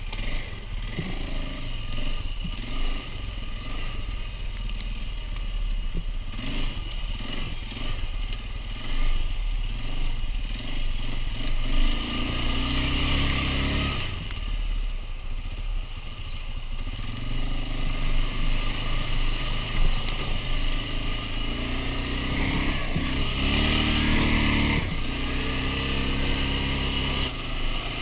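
Quad bike engine running and revving up several times as it moves off, loudest about halfway through and again near the end.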